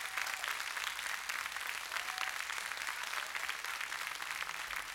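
Concert audience applauding: many hands clapping steadily.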